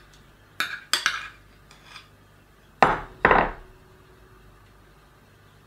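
Metal spoon clinking and scraping against a stainless steel mixing bowl as cream cheese is scraped off it: a few light clinks, then two louder knocks close together about three seconds in, with the bowl ringing briefly after.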